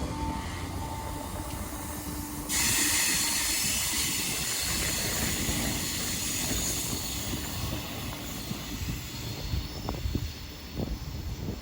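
Class 319 electric multiple unit pulling out of the station. A loud, high hiss of wheels on rail sets in suddenly about two and a half seconds in and fades after a few seconds, with a few short knocks near the end.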